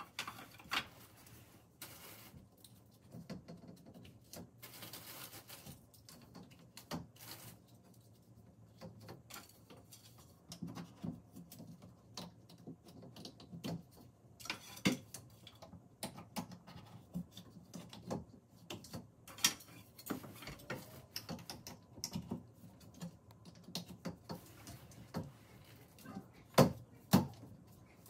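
Irregular clicks and knocks of wooden bed slats being handled and fitted into their holders on a bed frame, a few sharper knocks near the end.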